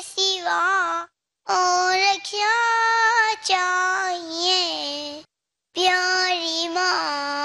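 A young boy singing an Urdu song solo into a microphone, with no instruments, in long held notes that slide between pitches. The sound cuts out completely twice, briefly, between phrases.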